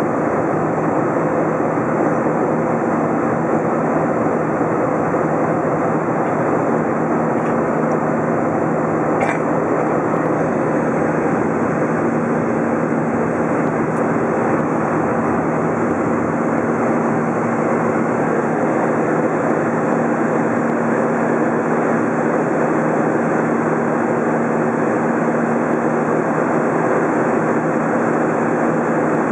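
Airbus A320 cabin noise in flight, heard from a window seat over the wing: a steady drone of engine and rushing air with a low constant hum, unchanging throughout.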